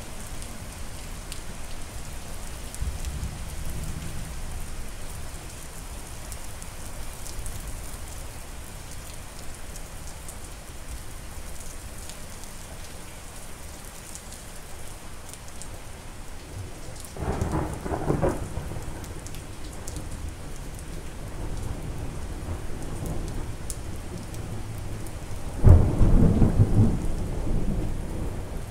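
Steady rain falling, with thunder: a low rumble a few seconds in, a sharper peal a little past halfway, and the loudest clap near the end, rumbling on after it.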